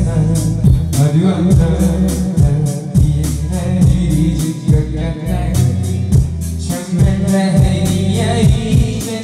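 A man singing into a karaoke microphone over a loud karaoke backing track with a regular drum beat and bass.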